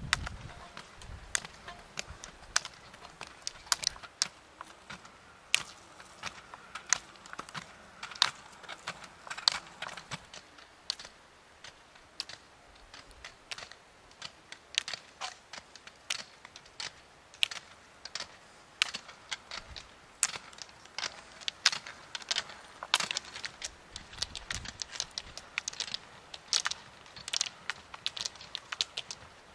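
Roller skiers' carbide pole tips clicking sharply on asphalt as they skate by, the clicks coming thicker and faster near the end as a group of skiers comes up.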